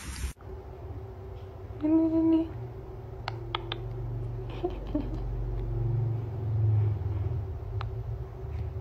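Small caster wheels of a pet walker frame rolling over a hard floor, a low steady rumble that grows louder in the middle, with a few light clicks and a brief pitched sound about two seconds in.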